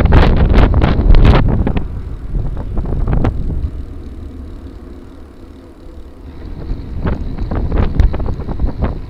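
Wind rushing over the microphone of a gravel bike riding a rough trail, with the bike knocking and rattling over bumps. It is loud at the start, eases in the middle and picks up again near the end.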